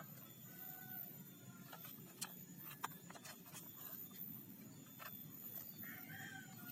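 Quiet background with a few faint, scattered clicks.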